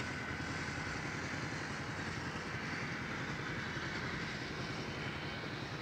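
Steady low hum and rumble of a running engine, with an even background noise and no change in level.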